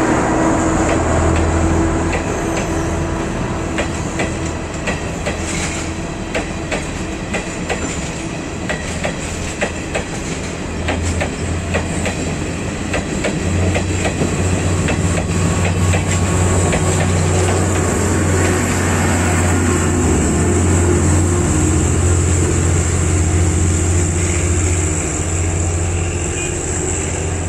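Class S12 diesel multiple unit passing close by while accelerating: the wheels clatter over rail joints, with many sharp clicks in the first half. Under this runs the diesel engines' steady low drone, which grows stronger from about halfway on.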